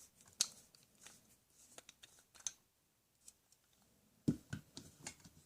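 Plastic toy tools being handled: light scattered clicks and taps, then a quick run of duller knocks about four seconds in.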